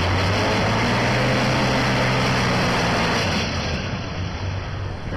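Heavy dump truck's diesel engine running hard as the truck pulls up out of shallow water off a ferry ramp onto a gravel shore, with a steady low engine note that eases off about three and a half seconds in.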